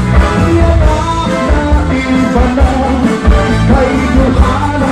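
Live band music with a steady dance beat, in cha-cha-cha style.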